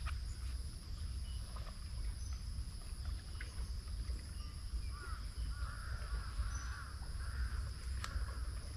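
Outdoor ambience with a steady low rumble and a steady high-pitched hum. From about halfway through, a bird calls over and over in short, rising-and-falling notes.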